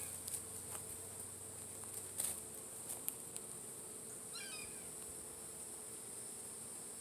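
Honey bees of an opened hive buzzing as a faint steady hum, with a few faint clicks from handling.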